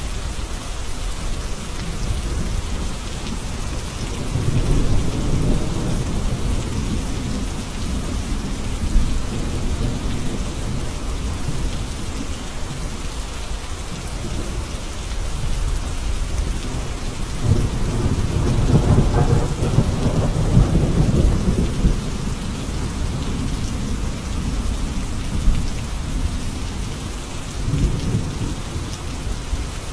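Steady heavy rain with low rolling thunder swelling in and out three times, the longest and loudest rumble about two-thirds of the way through.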